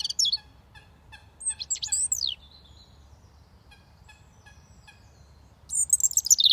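European robin singing: short, high, thin warbling phrases in the first couple of seconds and a longer, louder run near the end, with a string of quiet short notes in between.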